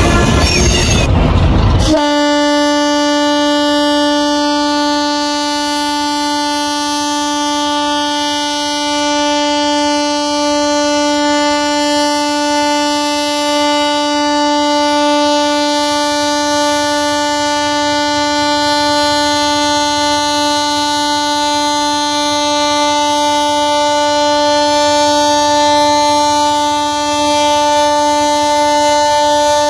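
A loud, noisy passage that cuts off about two seconds in, then a train horn sounding one steady note, held without a break for nearly half a minute.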